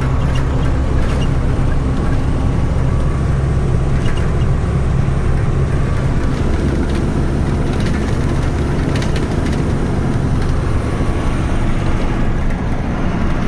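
Tata 3118 truck's diesel engine running steadily under way, mixed with road noise, heard from inside the moving cab, with a few light clicks.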